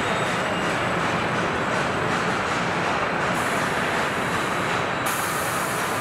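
Steady rushing machinery noise in a large factory hall, with no single event standing out; its high hiss changes abruptly about three and five seconds in.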